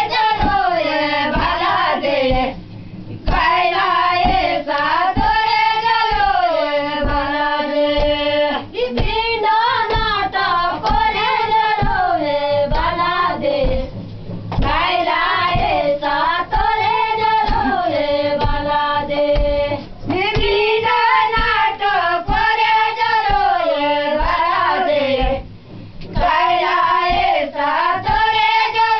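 A group of women singing a Jaunpuri folk song in unison, long rising and falling phrases with brief breaks between lines, over a steady beat of thumps about twice a second.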